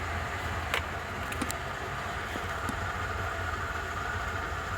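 Steady low mechanical hum, with a few light clicks about a second in.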